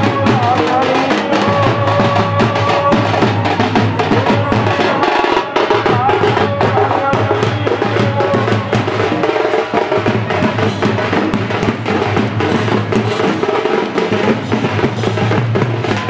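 Procession drummers beating large metal-shelled drums with sticks in a fast, continuous rhythm.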